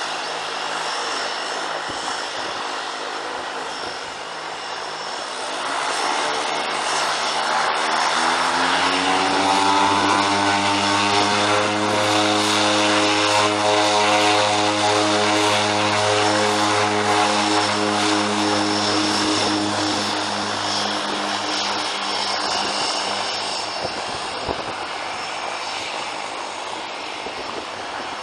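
de Havilland Canada DHC-6 Twin Otter's twin turboprop engines and propellers powering up for takeoff. The propeller tone climbs in pitch about eight seconds in, holds steady and loud at full power, then fades as the aircraft rolls away down the runway.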